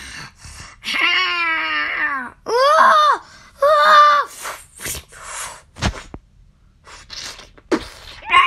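Shrieking creature cries: a long falling screech, two arching wails, hisses, a sharp knock about six seconds in, and another falling screech near the end, the sounds of a xenomorph being struck and dying.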